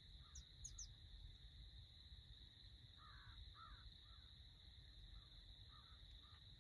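Near silence with a faint steady high whine, a few short high bird chirps under a second in, and a distant bird giving a short series of harsh calls from about three seconds in, two louder and then several fainter.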